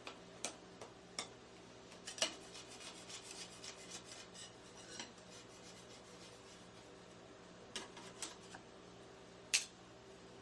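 Metal spatulas striking and scraping on the steel cold plate of a rolled-ice-cream counter: scattered sharp clacks, with a run of quick chopping taps from about two to five seconds in. The loudest clack comes near the end, over a faint steady hum.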